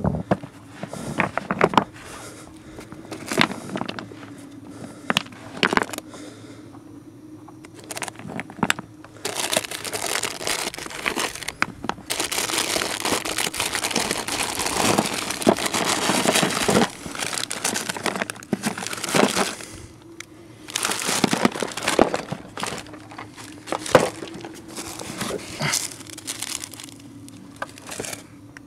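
Plastic bag crinkling and rustling in irregular bursts as a hand works a wrapped package out of a rock crevice. The longest stretch of crinkling comes about halfway through.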